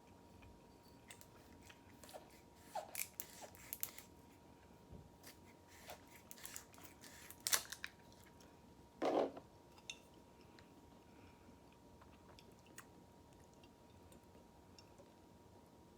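Close-miked chewing and mouth sounds of a person eating, with scattered sharp clicks and smacks, busiest in the first half, and one louder short sound about nine seconds in.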